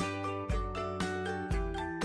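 Instrumental background music with a steady beat, new notes and a low bass note falling about twice a second.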